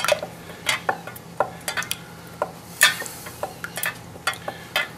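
Wooden spoon stirring red wine sauce in a stainless steel pot, knocking and scraping against the metal sides in irregular clicks, with a longer scrape about three seconds in. Butter is being stirred into the sauce to finish it.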